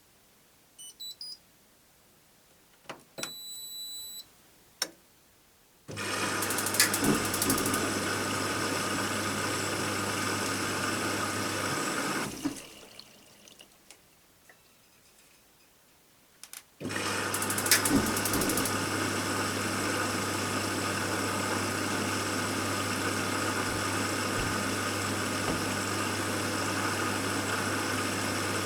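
Washing machine starting a cycle: a few short control-panel beeps and one longer beep, then a steady hum and rush. The hum cuts out about halfway through, leaving a few seconds of quiet with small clicks, then starts again and carries on.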